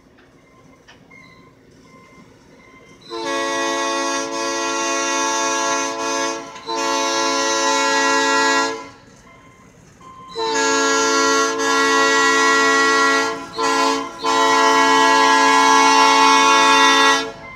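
Air horn on a passing Amtrak work train, a multi-note chord sounded in several long blasts with one short blast near the end, finishing long, short, long as in the grade-crossing signal. Faint rolling of the rail cars shows in the gaps.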